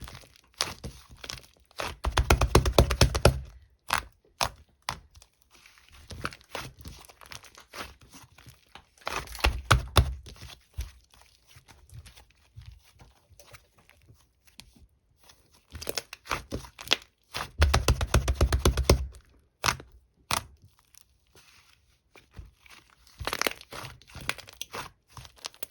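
White fluffy slime being squeezed and pressed by hand, giving crackling bursts of popping air bubbles. Four longer crackly bursts come a few seconds apart, with single pops and clicks in between.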